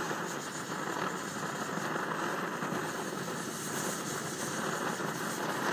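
Svea 123R white-gas backpacking stove's burner running with a steady roar, just lit after priming, while the priming alcohol still burns beneath it.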